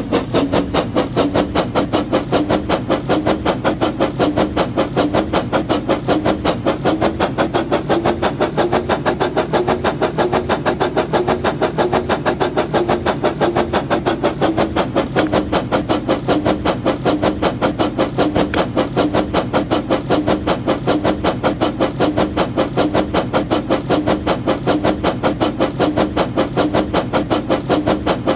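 Motorised brick-built toy steam locomotive running steadily, giving a rapid, even pulsing several times a second over a hum that rises slightly and settles back.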